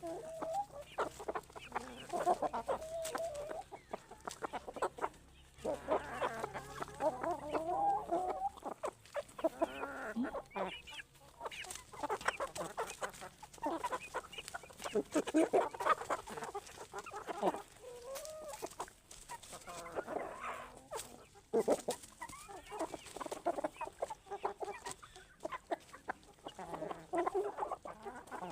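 A flock of chickens clucking, with many overlapping calls throughout. A faint low hum underneath stops about eight seconds in.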